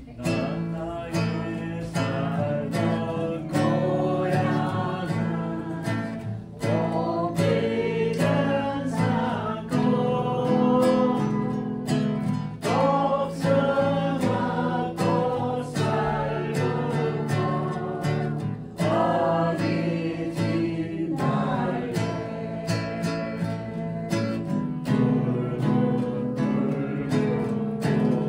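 Singing accompanied by a strummed acoustic guitar, a steady strummed rhythm under a sung melody.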